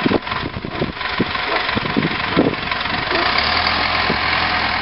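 Yellow wheel loader's engine running steadily, with a low hum that grows stronger about three seconds in. A few dull bumps come in the first couple of seconds.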